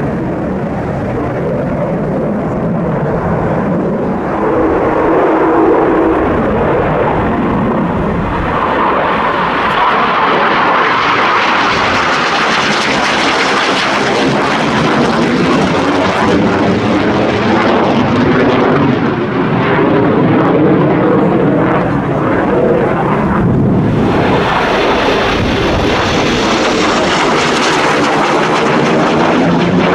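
Military jet aircraft taking off, the engine noise continuous and loud, with a sweeping, phasing quality as it moves. It swells twice, from about ten seconds in and again from about twenty-four seconds in.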